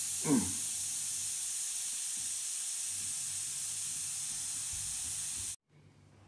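High-pressure air hissing steadily out of a Precihole PX100 PCP air rifle's air cylinder as the pressure gauge is slowly turned to vent it to zero. The hiss cuts off suddenly about five and a half seconds in.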